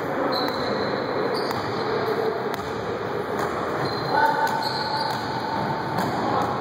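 Basketball game in an echoing gym: the ball bouncing on the court, scattered short high squeaks from players' shoes, and players' voices.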